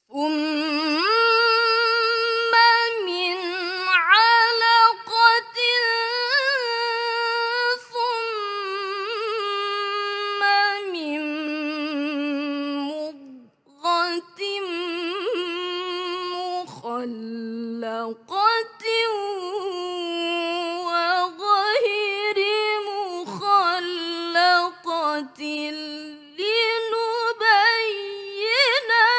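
A young woman recites the Qur'an in the melodic tilawah (mujawwad) style, unaccompanied. She holds long notes with wavering ornaments and takes a short breath break about halfway through.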